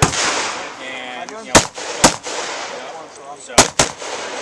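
Rifle gunfire on a competition range: about six sharp shots at uneven spacing, several coming in quick pairs.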